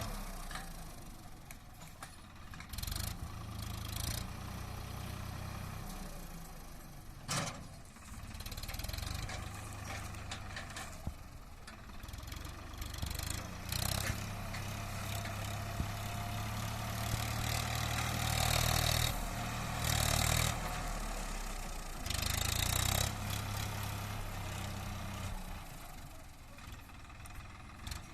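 Swaraj 963 FE tractor's diesel engine running a backhoe attachment, its note swelling and easing as the load comes and goes, with several sharp knocks and clanks, the loudest about a quarter of the way through.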